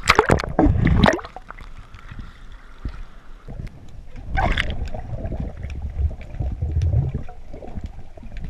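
Water splashing loudly against a GoPro at the sea surface for about a second, then the muffled, gurgling sound of the camera underwater, with a short rushing burst about four and a half seconds in and low rumbling water movement.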